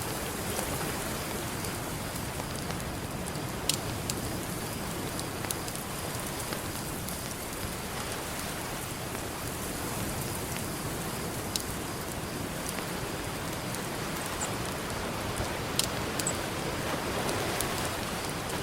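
Campfire crackling, with a few sharp pops scattered through it, over a steady wash of ocean surf that swells louder near the end.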